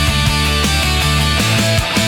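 Heavy rock music from a full band: drums beat steadily under a held bass line, which steps up to a higher note a little past halfway.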